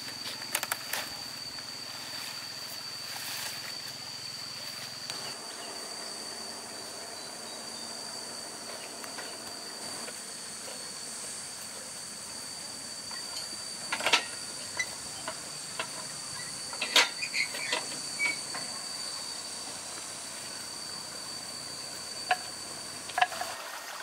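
Insects singing as one steady high-pitched drone over a faint hiss, with a few short sharp knocks and clatters about halfway through and again near the end.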